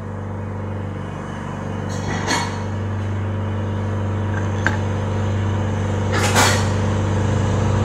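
Steady low machine hum, with short noisy bursts about two seconds in and again near six seconds, and a sharp click between them.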